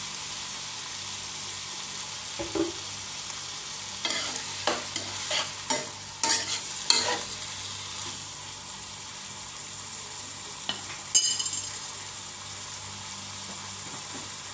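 Vegetables, sliced mushrooms and quail eggs sizzling in oil in a non-stick pan, with a utensil scraping and stirring through them for a few seconds around the middle. A single sharp, ringing metal clink comes a little later.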